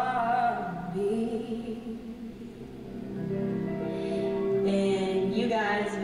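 A woman singing a slow soulful song live into a microphone, with a band backing her. She sings in phrases, with a long held note in the middle.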